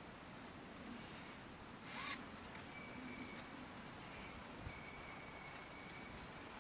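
Hammock suspension being handled, with one short zip-like rasp about two seconds in. A few thin, high whistled notes sound faintly later on.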